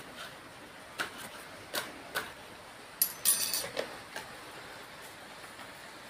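Plastic clicks and knocks from handling a white plastic ceiling-fan light unit. There are single sharp clicks about a second apart and a brief rattling clatter about three seconds in, over a steady hiss.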